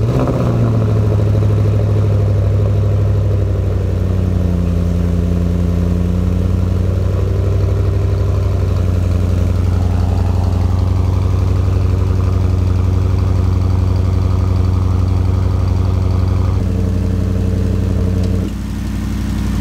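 A 2020 Audi S8's twin-turbo 4.0-litre V8, breathing through a freshly installed FI titanium catback exhaust, starts up with a brief loud flare and settles into a steady high idle. About 18 seconds in the idle drops to a lower, quieter note.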